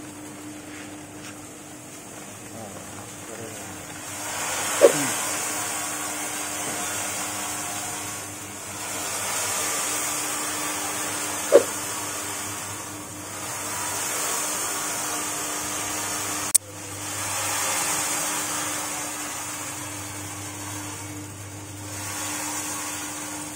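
Electric motor turning the steel drum of a maggot-drying machine, with a steady hum, while dried maggots slide out of the turning drum in a rushing rustle that swells and fades several times. Three sharp knocks come about five, eleven and sixteen seconds in.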